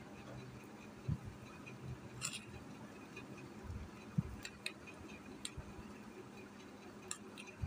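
Brush stirring a thick bleach paste in a small plastic bowl: faint, irregular light ticks as it knocks the bowl, with a couple of soft low thumps.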